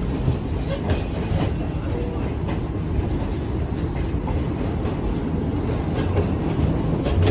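Passenger coaches of the Green Line Express rolling past along the platform line: a steady rumble of wheels on rail with scattered clicks as the wheels cross rail joints.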